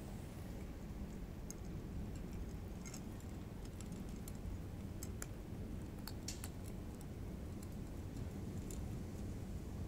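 Cats eating dry kibble from saucers: small, irregular crunching clicks over a steady low background rumble.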